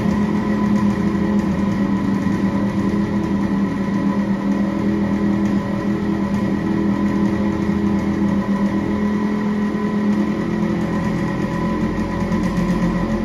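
Yamaha RX100's two-stroke single-cylinder engine idling steadily, its silencer leak patched with a makeshift seal that the owner thinks has largely stopped the exhaust leakage.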